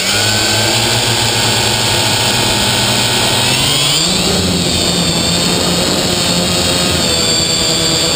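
Quadcopter's electric motors and propellers, heard from on board, running steadily with a whine of several tones, then rising in pitch about four seconds in as the throttle goes up and the drone lifts off.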